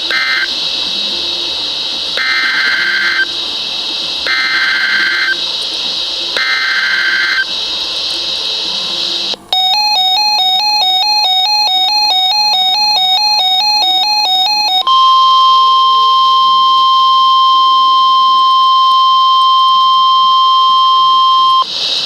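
NOAA Weather Radio Emergency Alert System signal. A short burst opens it, then three buzzing SAME digital data bursts about a second long and two seconds apart, the header of a new warning. These are followed by about five seconds of a rapidly alternating electronic alarm tone, then the steady 1050 Hz weather radio warning alarm tone for about seven seconds, all over a steady radio hiss.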